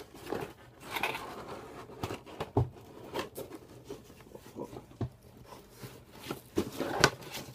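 Packaging being handled and opened by hand: crinkling and rustling of wrapping and the box, with scattered small clicks and knocks, a louder rustle about a second in and again near the end.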